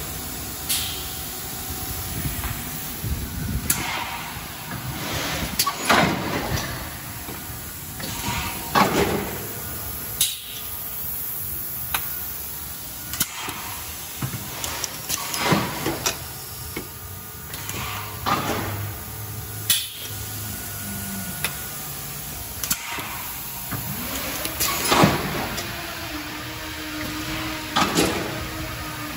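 Thermoforming machine running through its cycle: sharp hisses and knocks repeat roughly every two to three seconds over a steady machine hum. A motor whine rises near the end.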